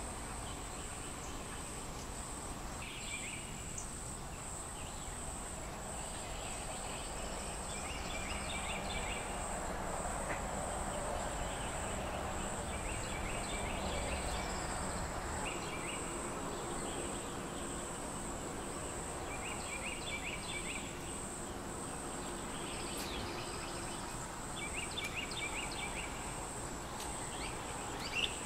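Steady high-pitched insect drone, with short trilling calls repeating every few seconds over it.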